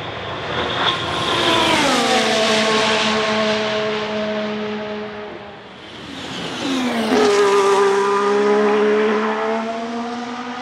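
Two 2022 Formula 1 cars' 1.6-litre turbo V6 hybrid engines passing at speed, one after the other about five seconds apart. Each engine note rises in level and drops sharply in pitch as the car goes by, then fades as it runs away.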